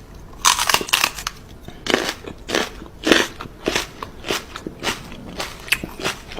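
A dog chewing something hard and crunchy, with a run of loud, irregular crunches about one to two a second.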